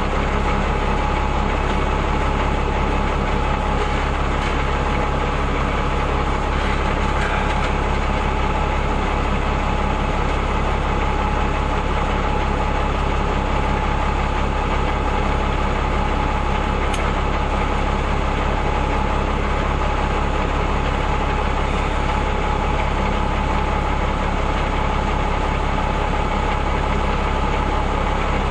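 REO M35 army truck's engine running steadily at an even level.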